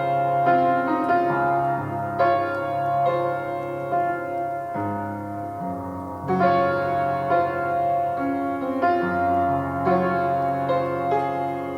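Piano music, slow and sustained, with notes ringing on and a new bass note every few seconds.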